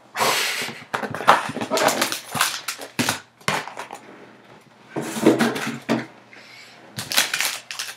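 A 2017 Topps Tier One cardboard hobby box is opened by hand and its foil-wrapped pack taken out and set on the table: a rush of cardboard sliding, then a quick run of clicks and knocks, with further bursts of handling noise about five and seven seconds in.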